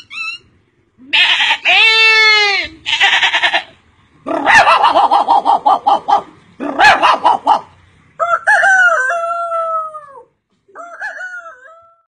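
A man imitating farmyard animals with his voice: a loud rooster-like crow that rises and falls, then a run of quick clucking pulses, and two falling cries near the end.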